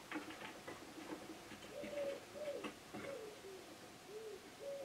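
Faint cooing of a pigeon: a run of arching coos about two seconds in and another near the end. A few light clicks of handling come at the start.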